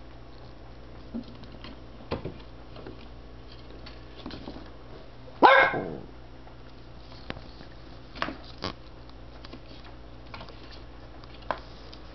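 A barking-mouse cat toy plays a recorded dog bark once, about halfway through, as the kitten bats at it. Scattered light knocks and taps come before and after it.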